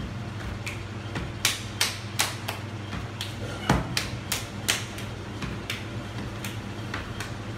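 Hands slapping and patting a block of wet clay into shape on a bench: a dozen or so sharp slaps at an irregular pace, over a steady low hum.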